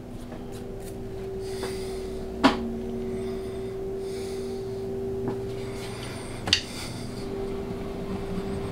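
A workshop machine's electric motor running with a steady hum, and two sharp clicks, about two and a half seconds in and again near six and a half seconds.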